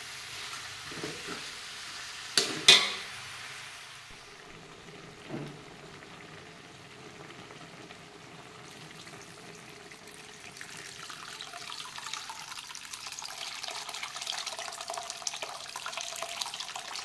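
Free-range chicken and chilli spice paste sizzling in a wok, with a couple of loud sharp knocks of the spatula against the wok about two and a half seconds in. From about ten seconds in, coconut milk is poured through a strainer into the hot wok, and the splashing, hissing liquid grows louder.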